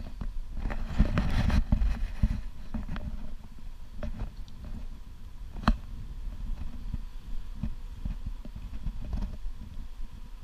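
Wind rumbling on the camera's microphone, with handling knocks and footsteps in grass as the camera is carried through the apiary; gustiest in the first two seconds, with one sharp click near the middle.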